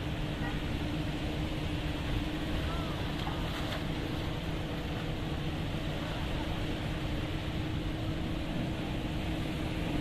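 Engine of a small wooden outrigger fishing boat running steadily, a constant hum over the wash of choppy sea water.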